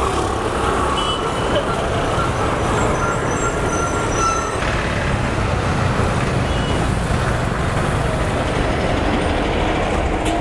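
Bus-stand traffic: city buses and motorcycles running and moving past in a steady street rumble, with a city bus passing close near the end.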